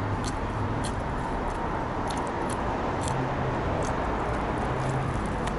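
Steady background noise with a low hum, with a few faint short clicks scattered through it.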